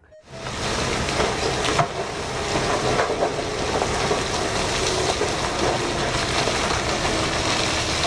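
Giant mining dump truck tipping its raised bed, a load of rock pouring out in a steady rushing rumble over the truck's running engine.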